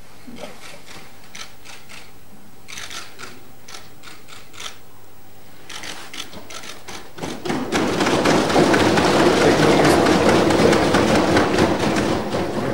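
Assembly members applauding: scattered claps and knocks at first, swelling about seven seconds in into dense, loud applause.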